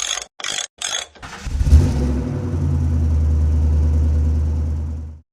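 Three short hissy bursts, then a car engine starts with a brief rev about a second and a half in and settles into a steady idle, cutting off abruptly near the end.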